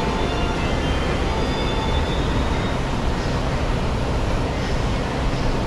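Steady ambient roar of a large airport terminal hall, heaviest in the low end, with a few faint tones near the start.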